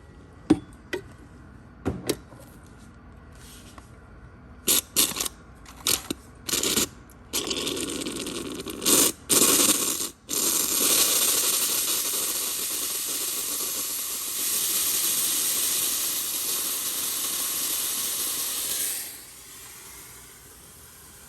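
A few sharp clicks and knocks, then a handheld steamer hissing steadily for about twelve seconds, briefly cut near ten seconds in and stopping about nineteen seconds in. The steam is thawing a frozen water line that runs to the refrigerator door.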